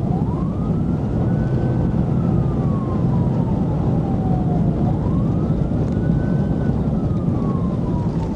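Police car siren on a slow wail, one tone rising quickly and falling slowly, repeating about every four and a half seconds, over the heavy road and engine noise of the patrol car running at about 100 mph.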